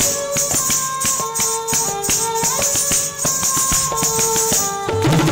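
Kathak ankle bells (ghungroo) jingling in an even pulse, about two shakes a second, over a held-note lehra melody; the tabla drops out and comes back in near the end.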